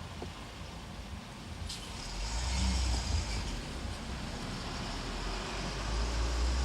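A heavy engine running with a low rumble, louder from about two seconds in, and a sharp hiss that starts suddenly just before then and keeps going.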